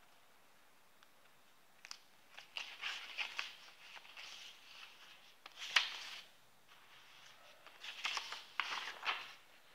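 Paper rustling and crinkling in short, irregular spells, with scattered light clicks and one sharper click about six seconds in.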